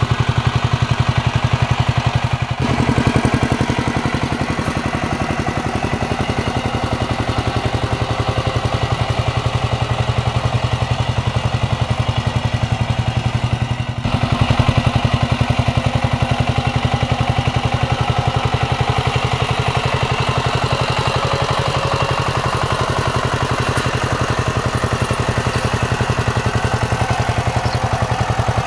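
Kamco power tiller's single-cylinder diesel engine running steadily under load with a rapid, even firing beat as the tiller puddles wet paddy mud. The sound shifts abruptly twice, about two and a half seconds in and again about fourteen seconds in.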